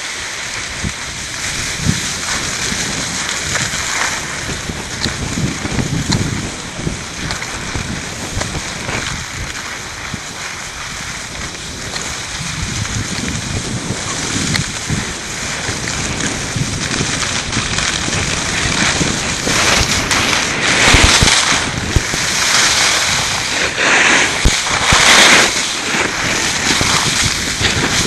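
Snowboard sliding and carving over snow, a steady scraping hiss mixed with wind buffeting a helmet-mounted microphone. It grows louder in the last third, with stronger surges of scraping and wind.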